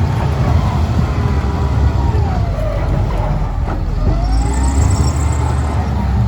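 Steady low rumble of a running vehicle engine, with a faint siren wailing down in pitch about halfway through and rising back again.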